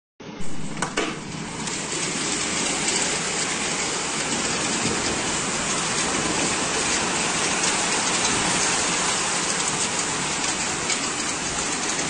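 Heavy hail coming down: a dense, steady hiss of hailstones striking the ground, trees and building surfaces.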